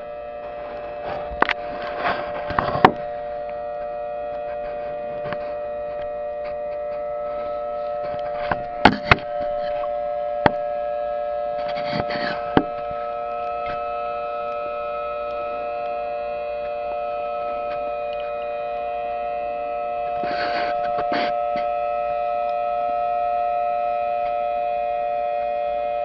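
Recording of a Federal Signal Thunderbolt civil defense siren played back through a laptop's speakers, holding a steady tone that swells a little in loudness twice. A few sharp knocks and taps break in over it.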